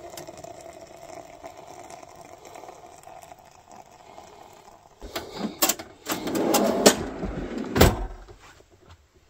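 Hot water pouring steadily from a pot into a French press. About five seconds in, clattering and a rumbling slide as the camp-stove drawer is packed up and pushed shut, ending in a sharp knock.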